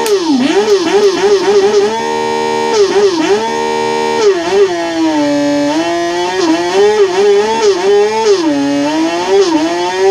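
Synthesized big-motorbike engine sound played through an electric bicycle's sound booster speaker, revving in quick blips up and down in pitch, with a few steadier held notes between them.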